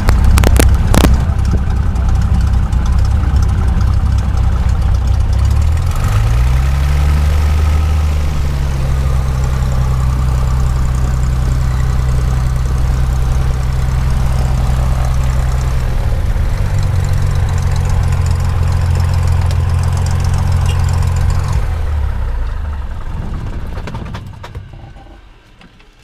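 Single-engine light airplane's piston engine idling while it taxis, heard from inside the cabin, its pitch shifting slightly a few seconds in and again later. Near the end the engine winds down and stops as it is shut down.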